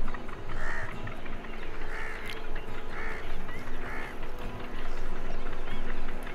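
A bird calling four times, about a second apart, over steady background noise.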